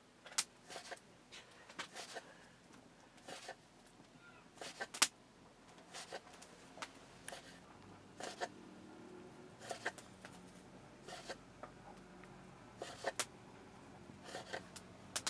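Kitchen knife cutting folded, floured dough into noodles against a wooden board: short, sharp taps of the blade, irregular, about one or two a second.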